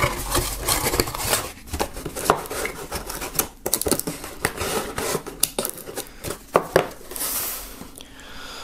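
Small cardboard box being folded shut by hand: flaps creasing, tabs tucked and cardboard rubbing, with a string of light knocks and taps and a longer scraping rustle near the end.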